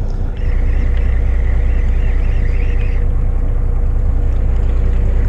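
Fishing boat's engine running with a steady low rumble that steps up in level about half a second in.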